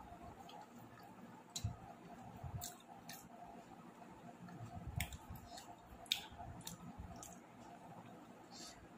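Faint eating sounds: soft wet squishes and scattered small clicks of chewing and handling food, a few louder ones about 1.5, 5 and 6 seconds in, over a faint steady hum.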